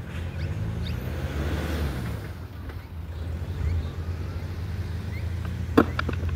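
Skateboard rolling on concrete with a steady low hum from the wheels. Near the end there is one sharp, loud clack from the board, followed by a couple of lighter knocks.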